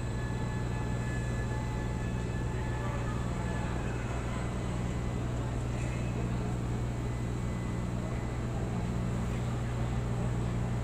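Steady low machinery hum with a few faint, steady high-pitched whines over it, from container terminal machinery while a gantry crane lowers a container.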